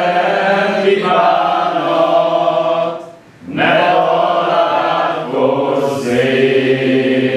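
A group of voices singing together in long held phrases, chant-like, with a short break about three seconds in.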